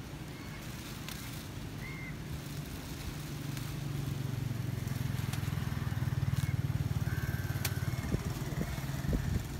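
An engine running with a low, steady drone, growing louder from about three seconds in and easing slightly near the end, as if drawing nearer.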